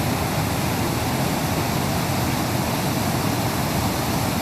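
Steady rushing of river water, an even, unbroken wash.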